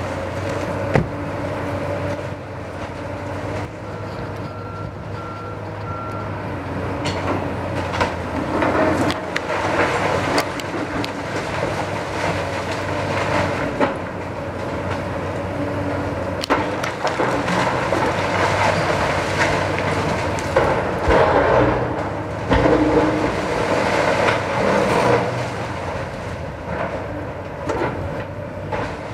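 Demolition excavator's diesel engine running under load while its bucket works through brick rubble, with scattered knocks and clattering of debris that grow busier in the second half. Three short beeps about five seconds in.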